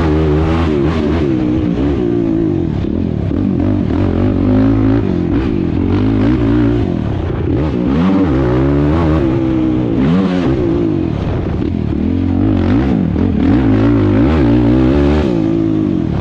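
Sport quad's engine heard from on board at race pace, its pitch climbing and dropping over and over as it revs up and falls back through throttle and gear changes.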